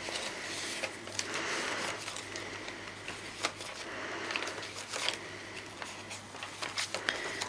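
Paper and card rustling, with scattered soft clicks and taps, as handmade journal pages are turned and card tags are handled.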